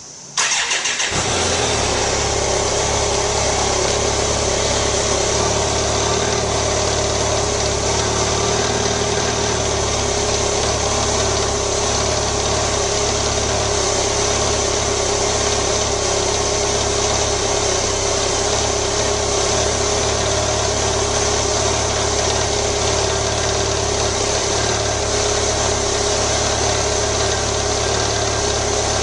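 BMW motorcycle engine cranked on the starter, catching almost at once, then idling steadily.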